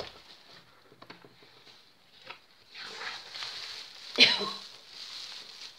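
Cardboard parcel being opened and a bubble-wrapped bundle lifted out: a few light knocks of cardboard, then rustling and crinkling of cardboard and plastic bubble wrap, with a sharper, louder crackle about four seconds in.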